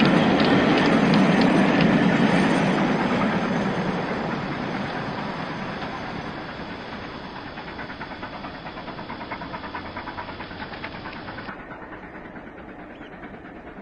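Wagons and brake van of an 00 scale model goods train rolling along the track, wheels rumbling and clicking over the rail joints, fading steadily as the train runs away. A run of regular ticks comes through in the middle.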